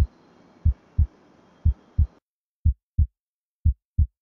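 Heartbeat sound effect: pairs of low, dull thumps in a lub-dub rhythm, about one pair a second. A faint background hiss under it cuts off about two seconds in, leaving the beats alone.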